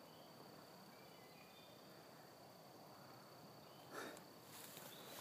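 Near silence outdoors: a faint steady high whine with a few faint short chirps, then a brief rustle of a footstep in grass about four seconds in.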